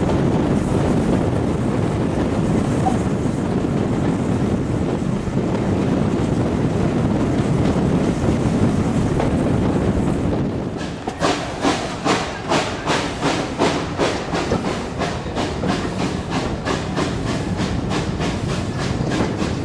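A steam-hauled heritage train behind ex-GWR 0-6-0 pannier tank No. 5764, heard from an open carriage window: a steady rumble of the train running, then about halfway through a quick, regular run of sharp rhythmic beats sets in.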